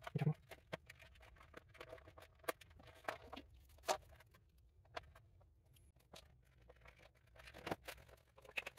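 Light clicks, taps and scrapes of plastic parts and wires being handled inside an opened UPS casing as its transformer and circuit board are shifted about. The clicks come irregularly, a little denser near the end.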